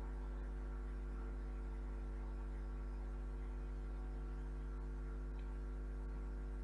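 Steady electrical mains hum, a low drone with a stack of fainter, higher hum tones above it, unchanging throughout.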